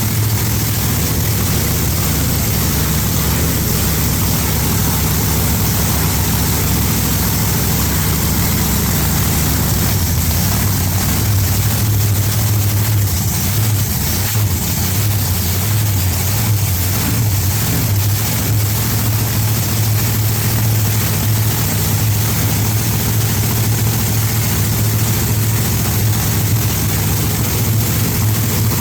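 Supercharged big-block Chevrolet V8 running on methanol, idling steadily with a deep, even note.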